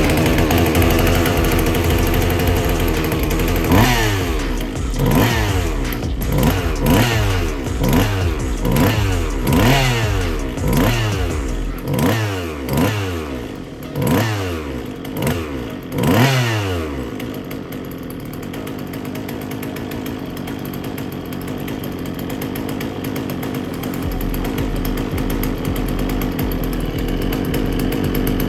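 Two-stroke chainsaw engine idling, then blipped about a dozen times in a row, roughly once a second, each rev rising sharply and dropping back, before it settles to a steady idle.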